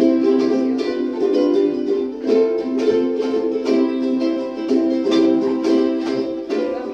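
A group of ukuleles strumming chords together in a steady rhythm.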